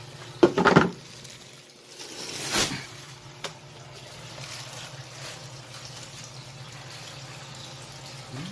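Water pouring steadily from the PVC return line into the pool pond. A short loud sound breaks in about half a second in, and the water rush swells briefly louder around two and a half seconds.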